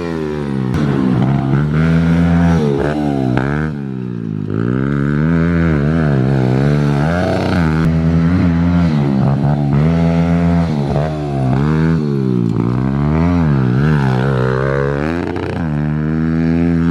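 Kawasaki KLX110 pit bike's small single-cylinder four-stroke engine being ridden hard, the throttle opened and closed again and again. Its pitch rises and falls about every second or so.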